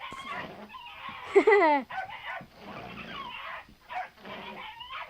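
A dog gives a single short yelping cry that falls in pitch about a second and a half in, amid people's voices from the dog video.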